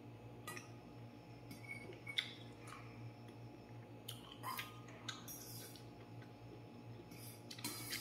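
Fork and spoon clinking and scraping against a stainless steel bowl of soup noodles: a handful of short, scattered clicks over a faint steady hum.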